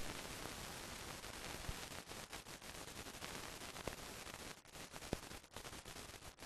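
Steady hiss with scattered clicks and crackles, the surface noise of an old film soundtrack. It dips out briefly a couple of times near the end.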